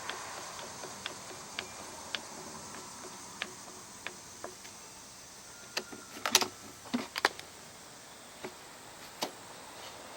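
Small sharp clicks and taps of a metal tube clamp being tightened by hand around a backpack blower tube, spaced out at first, with a louder cluster about six to seven seconds in.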